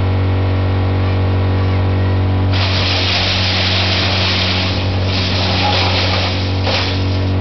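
Chipper's engine running steadily with a deep hum. From about two and a half seconds in, a loud rushing hiss comes over it for about four seconds, with a short burst just after.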